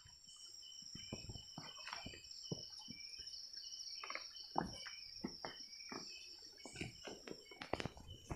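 Night insects chirping, a continuous high trill with a quicker pulsed chirp beneath it, over scattered footsteps and rustling of people walking through undergrowth.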